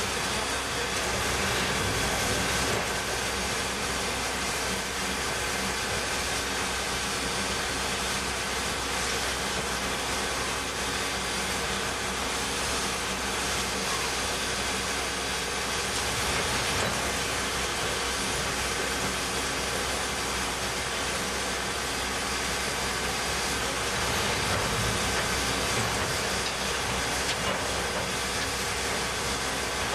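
Ex-Canadian National 0-6-0 steam locomotive standing still, giving off a steady hiss of escaping steam.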